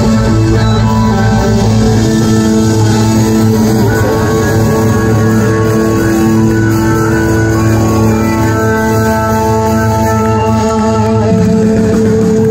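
Live rock band playing at full volume: electric bass and guitar, keyboards and drums, with long held notes ringing over a steady low end.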